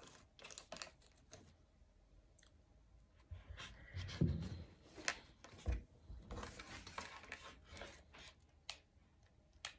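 Faint handling sounds on a craft table: rustling of an artificial fern spray and paper, with scattered clicks and taps and a couple of soft knocks around the middle as the hot glue gun is picked up.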